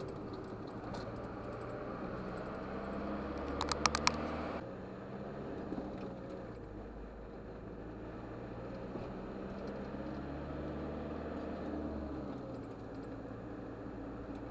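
Truck engine running with road noise, heard inside the cab, its low drone shifting in pitch as it drives. A quick cluster of sharp clicks comes about four seconds in, and the engine sound changes abruptly just after.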